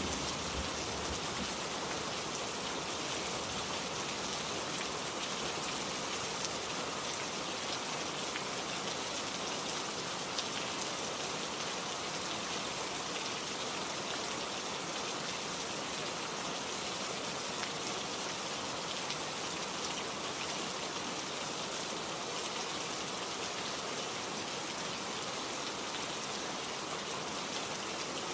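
Steady rain falling, an even hiss of many drops with occasional faint individual drop ticks.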